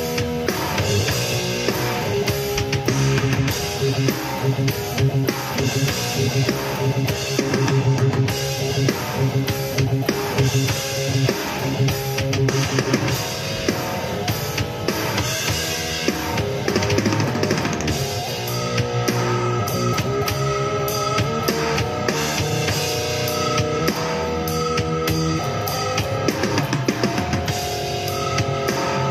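Heavy metal music: electric guitar over a drum kit with bass drum, playing continuously with a steady beat.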